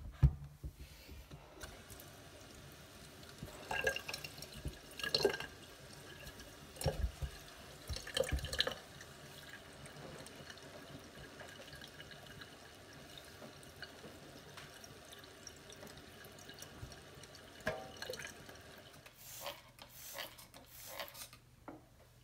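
Kitchen tap running steadily into a sink, with scattered knocks and clatters of things being handled.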